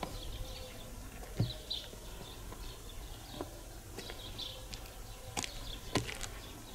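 Footsteps on a concrete walkway: a few irregular steps about a second apart, with small birds chirping faintly in the background.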